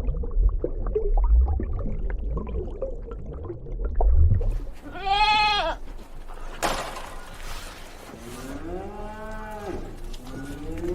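Farm animals bleating: one high call about five seconds in, then two lower, longer calls near the end, each rising and falling in pitch. A low rumble comes before the calls.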